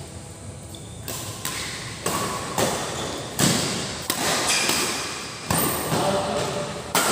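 Badminton rackets striking a shuttlecock in a fast doubles rally: about eight sharp cracks, one every half second to second and a half, each echoing in a large hall.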